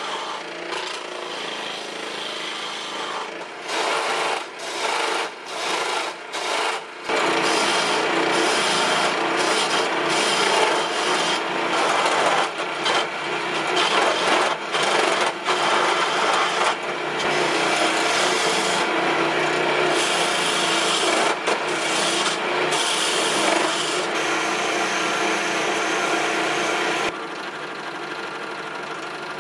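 Homemade mini wood lathe spinning a wooden spindle, with a skew chisel cutting it in a rough scraping rasp over the hum of the lathe's DC motor; the cutting starts and stops several times early on, then runs on steadily. Near the end it drops to a quieter rubbing as a cloth is held against the turning wood.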